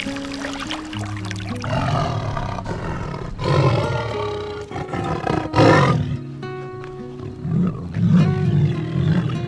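A large wild animal giving several loud, rough calls, the strongest about a third of the way in, just past halfway, and near the end, over background music with steady held notes.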